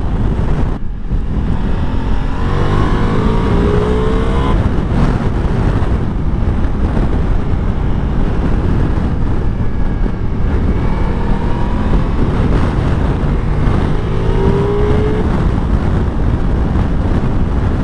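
Ducati Multistrada V4 Pikes Peak's V4 engine pulling hard on the move, its pitch rising three times as it accelerates. Heavy wind rush on the onboard camera mic runs under it throughout.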